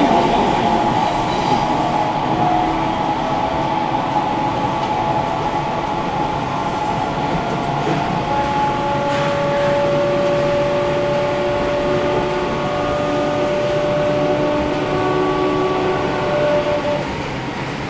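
Sendai City Subway 1000 series train running between stations, heard from inside the car: steady running noise with long held tones, with the air conditioning running.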